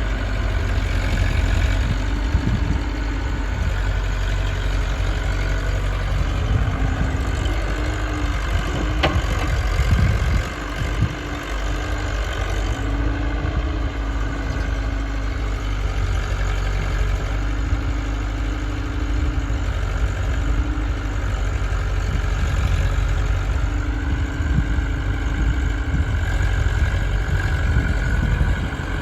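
Diesel engines of a JCB backhoe loader and a tractor running steadily at work, with a pitched hum that comes and goes and a single sharp click about nine seconds in.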